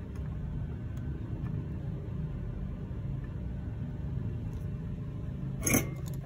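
Steady low background rumble, with one short sharp clatter near the end.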